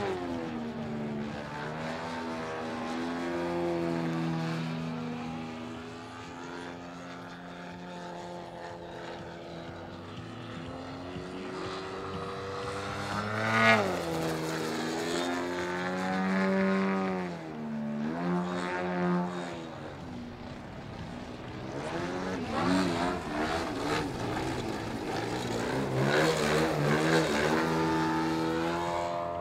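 ZDZ 195cc two-stroke petrol engine of a large-scale CARF Extra 330LX aerobatic model plane in flight, its propeller drone rising and falling in pitch and loudness as the plane throttles and manoeuvres, with a sharp swoop down about halfway through.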